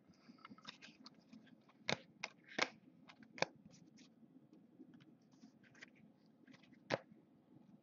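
2014 Topps Chrome football cards being handled by hand: faint scratchy slides and rustles with scattered sharper clicks, the loudest about two, two and a half, three and a half and seven seconds in.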